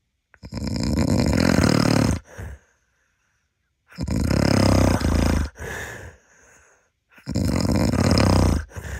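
A man snoring: three long snores about three and a half seconds apart, each followed by a shorter, quieter breath.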